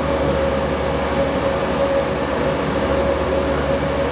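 CNC milling machine drilling holes in a muzzle brake blank with a solid carbide coolant-through drill spinning at about 4,360 RPM, coolant spraying. A steady whine over an even hiss and low hum.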